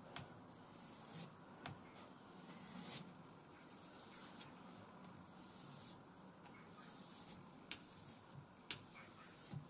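Faint scraping strokes of a puukko blade drawn across an abrasive strip on a board, honing its zero scandi grind, with a few light clicks between strokes.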